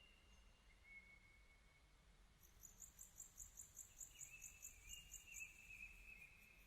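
Faint outdoor ambience. An insect chirps in a fast, even pulse of about five chirps a second for a few seconds, starting a little over two seconds in. Thin, wavering whistled bird calls are heard near the start and again in the second half.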